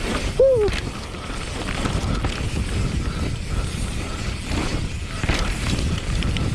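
Transition TR11 downhill mountain bike being ridden, its tyres and frame giving a constant, uneven low rumble and rattle. A brief squeak rises and falls about half a second in.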